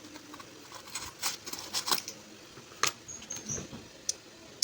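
Small hard parts being handled at a workbench: a quick run of clicks and light scrapes, then a few single sharp clicks, with a brief thin squeak in the middle.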